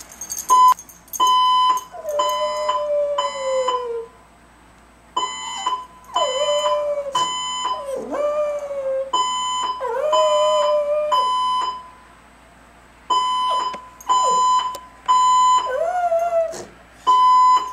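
Fire alarm sounding in repeated high-pitched beeps, pausing every few seconds, while a Chihuahua howls along over and between the beeps. The dog gives several drawn-out howls that sag and waver in pitch, with a few short yelps.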